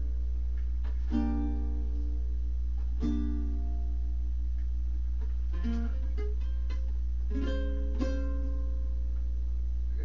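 Sparse plucked-string chords, about five struck a second or two apart and each left to ring out, over a steady low electrical hum.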